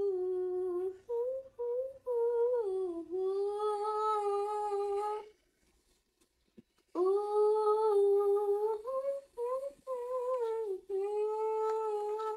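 A girl's voice humming a wordless melody in two long phrases of held notes that step up and down a little, with a short silent pause between them.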